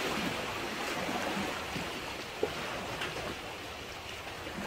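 Small sea waves lapping and splashing against the concrete tetrapods of a breakwater, a steady wash of water. A short click about halfway through.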